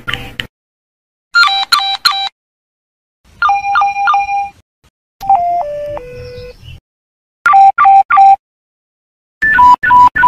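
Nokia mobile phone low-battery alert tones played one after another, each a short run of electronic beeps with silence between them. One alert near the middle is a sequence of tones stepping down in pitch, and the last two are quick runs of short beeps.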